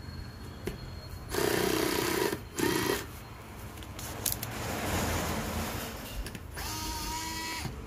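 A small cordless screwdriver's motor runs in three short bursts, with a steady whine while it spins, as it backs out the screws holding a speaker's metal grille.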